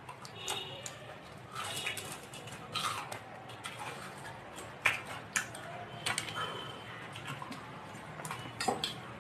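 Close-up chewing of puffed rice (muri) eaten by hand, with scattered crisp crunches and clicks.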